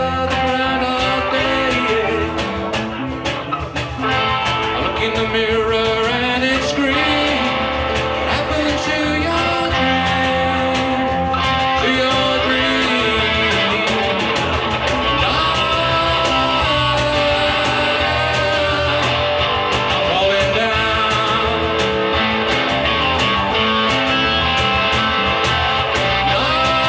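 Live band playing a blues-rock song, with guitar to the fore over drums.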